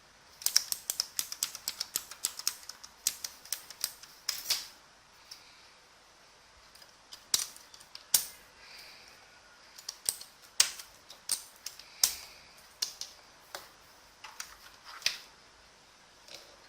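Keys being pressed on an Element Z77 mechanical keyboard with clicky blue Outemu switches: a quick run of keystrokes in the first few seconds, then scattered single presses with pauses between them.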